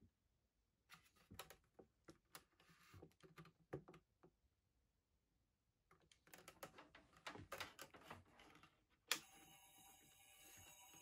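Hands gripping and turning the plastic base of a Lightning 2000 plasma lamp: scattered faint clicks and rubs. About nine seconds in comes a sharp click, then a steady hum with several fixed tones as the lamp runs.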